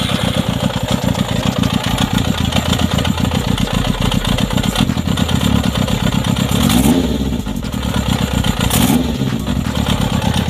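Yamaha XJR400's air-cooled inline-four engine running steadily, with the revs briefly rising and falling twice in the second half. It keeps running even with the fuel screws on cylinders 1, 2 and 3 screwed shut, a carburettor setup the mechanic calls rich.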